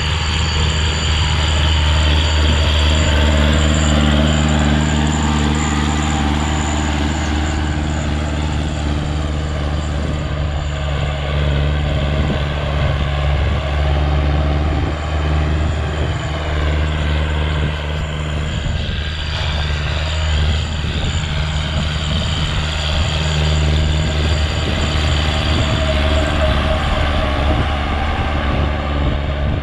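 Kubota L5018 tractor's diesel engine running steadily under load as it drives a rotary tiller through dry, hard soil.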